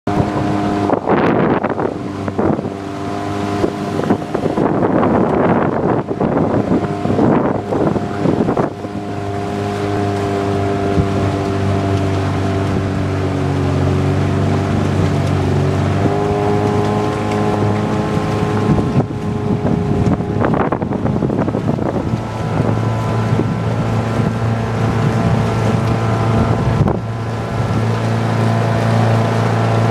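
Motorboat engine running steadily, its pitch shifting up and down a few times. Wind buffets the microphone in gusts during the first several seconds.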